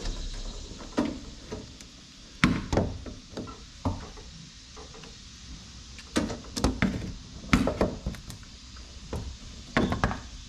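Pliers clicking and knocking against a mini Jeep's ignition switch as it is worked loose: a scatter of sharp knocks, some in quick clusters of two or three.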